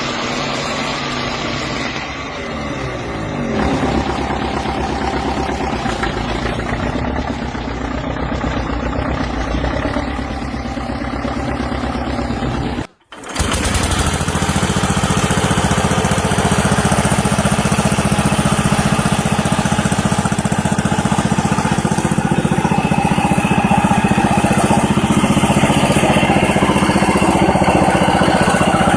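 Vintage tractor engines running: the first speeds up about three seconds in and then runs steadily. It breaks off about halfway, and a second engine runs at a steady, even speed.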